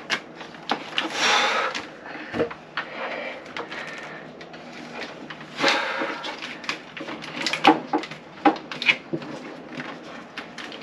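Handling noise as cable and plastic tubing are pulled and fed among the hoses under an open cabin floor hatch. Irregular scrapes and rustles are mixed with light knocks against wood and fibreglass.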